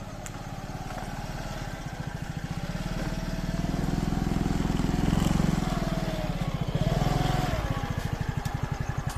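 A scooter's small engine running at low revs, its steady pulsing getting a little louder in the middle and easing off near the end.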